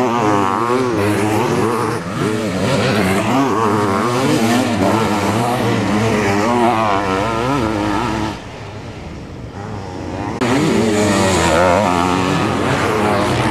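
Sidecar motocross outfits' engines revving hard on and off the throttle, their pitch wavering up and down as they race by. The sound drops to a quieter, duller stretch about eight seconds in, then comes back loud two seconds later.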